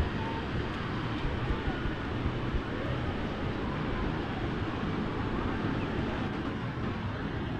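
Ocean surf breaking on the beach as a steady wash of noise, with faint distant voices of people in the water.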